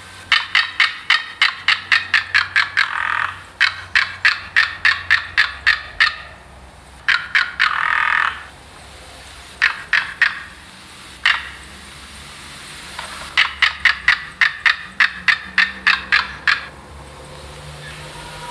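A reconstructed, hypothetical Velociraptor mongoliensis call: bouts of rapid clicking chatter at about four clicks a second, broken by two longer drawn-out calls and a few pauses.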